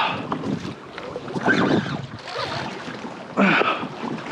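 Small waves slapping and sloshing against a plastic kayak hull, with wind on the microphone; two louder splashes, about two seconds apart.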